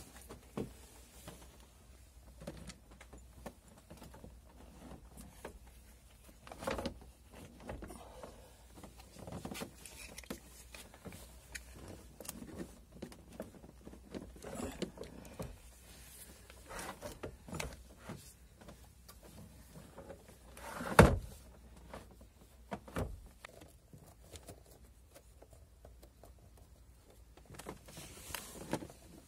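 Scattered knocks, clicks and scrapes of a car battery being handled and lowered into its plastic tray in an engine bay, with one loud knock about two-thirds of the way through.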